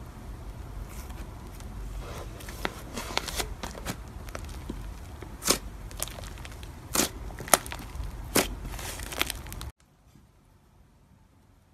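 Hands squishing and pressing thick white slime, with sticky crackling and several sharp pops of trapped air. About ten seconds in it cuts off abruptly to near silence.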